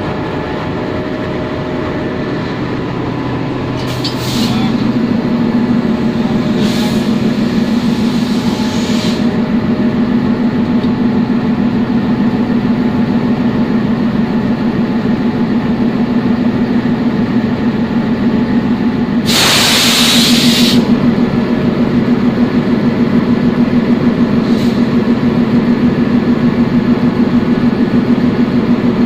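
Diesel locomotive engine running steadily, its note rising and settling into a stronger steady hum about four seconds in. Short hisses of air, then a loud hiss lasting about a second and a half around two-thirds through.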